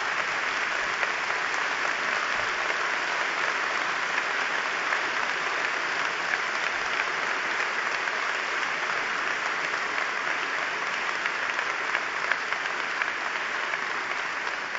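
Applause from a large conference audience, a dense, steady clapping that eases slightly near the end.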